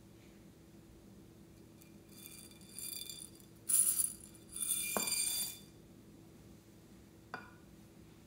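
Small foam beads rattling and clinking in a glazed ceramic dish as they are tipped out onto slime, for about three and a half seconds, with a sharp knock near the middle and a light tap near the end.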